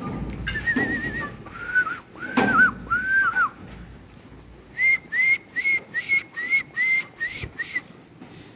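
A person whistling: a warbling whistle, a few short arched glides, then a quick run of about nine short rising whistles from about five seconds in.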